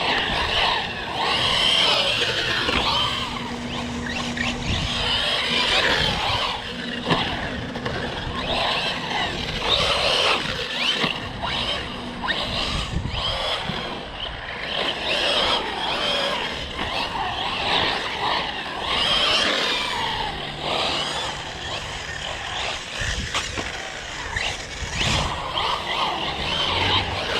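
Electric RC car running on a 3S LiPo pack, driven hard: its motor whine rises and falls over and over with the throttle, with tyres squealing on the pavement.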